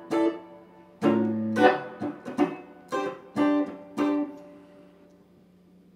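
Electric guitar strumming chords through two effects pedals used together. The chords ring and then die away about five seconds in, leaving a steady hum from the pedal chain, which sounds pretty noisy.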